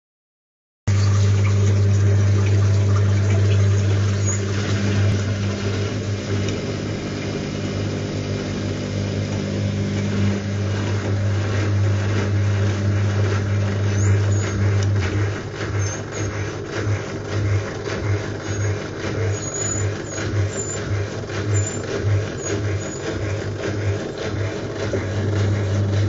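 Whirlpool washing machine running in its last rinse, heard from inside the drum: a steady low motor hum over a wash of churning noise. About halfway through, the hum starts to pulse unevenly as the drum works.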